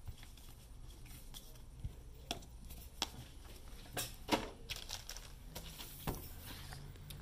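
Thick round cardboard game tokens being picked up off a tabletop and stacked in the hand, giving scattered light clicks and taps.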